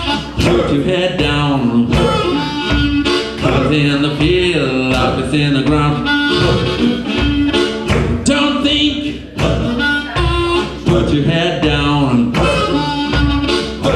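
Live blues band playing, with a harmonica cupped against a vocal microphone taking the lead in wailing, bending notes over drums and guitar.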